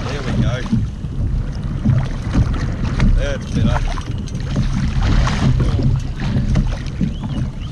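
Strong wind buffeting the microphone in a constant low rumble, with choppy waves slapping and splashing against the kayak's hull.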